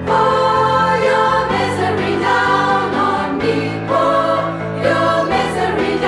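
Women's choir singing an alternative-rock arrangement. Held chords in several voices come in phrases that break off every second or so, over a low steady part underneath.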